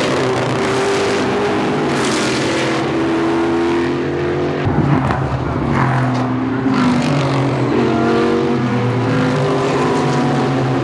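Several GT race cars' engines running hard past a corner, more than one at once, their notes stepping up and down in pitch through gear changes.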